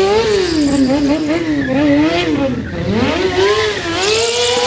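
Sport motorcycle engine revving hard during a burnout, its pitch wavering up and down, then climbing and holding high near the end, with the rear tyre hissing as it spins on the pavement.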